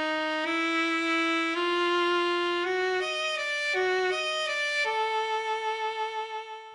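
Solo violin played with a bow: a slow melody of held notes stepping upward, a few quicker notes in the middle, then one long held note that fades away near the end.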